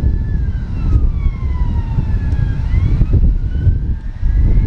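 Embraer Legacy 650 business jet's turbofan engines running, a whine of several tones sliding slowly up and down over a loud, fluctuating low rumble.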